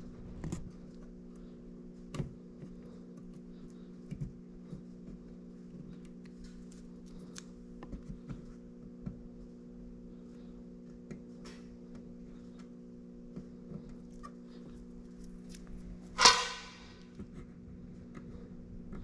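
Light clicks and taps of hands handling small parts over a steady electrical hum. About 16 seconds in there is one loud, short rasping noise, like something being torn or scraped.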